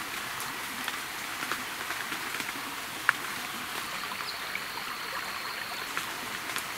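Steady rush of a nearby river running over rocks. A single sharp click sounds about three seconds in, and a faint thin high tone is held for about a second and a half past the middle.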